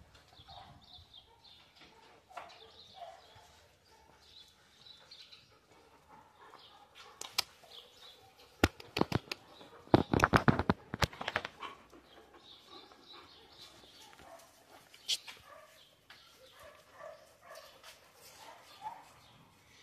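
Dogs play-wrestling on a tile floor: faint scuffling, then a run of sharp clacks and a loud burst of scuffling noise about ten seconds in.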